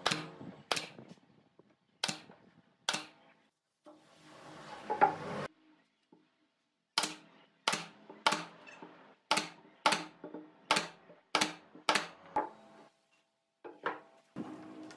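Pneumatic brad nailer firing brads into pine boards: sharp shots, two pairs early on and then a quick run of about nine shots roughly half a second apart. A brief rough scraping sounds between the pairs and the run.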